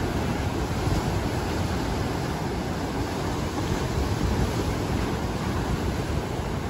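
Sea surf: waves breaking and washing in, a steady rushing noise, with wind rumbling on the microphone.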